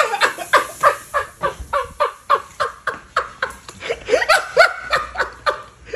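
A person laughing hard and breathlessly in rapid high-pitched bursts, about four a second, each falling in pitch, with a few louder peaks past the four-second mark.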